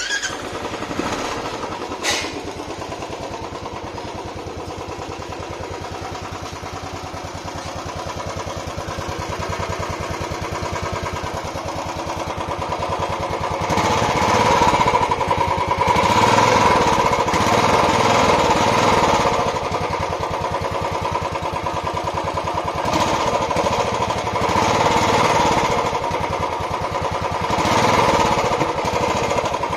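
Royal Enfield Classic 350 BS6's single-cylinder engine running through its stock exhaust with a steady thump, idling at first, then revved up in a few longer rises from about halfway through.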